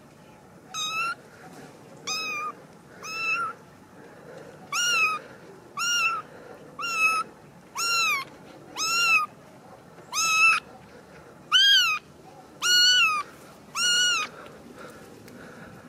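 Young kitten meowing over and over: about a dozen short, high-pitched calls, roughly one a second, each rising and then falling in pitch.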